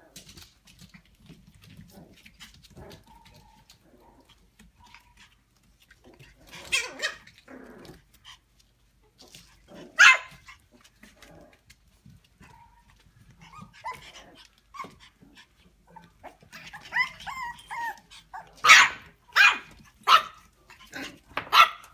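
Small dogs barking in sharp, high barks: a few single barks spaced seconds apart, then a quicker run of barks in the last five seconds.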